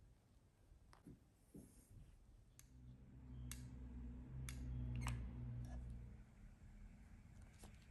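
Scattered light clicks and taps of wooden skewer sticks and a hot glue gun being handled on a craft table. A low hum swells up in the middle and fades again.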